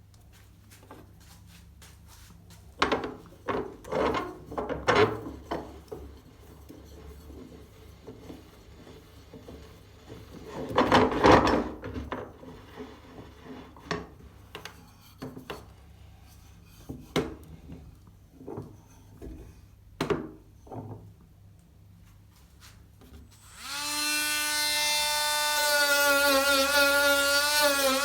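Tools and workpiece being handled with scattered knocks and scrapes, then, about three quarters of the way in, a small electric power tool starts up and runs with a steady whine that shifts slightly in pitch.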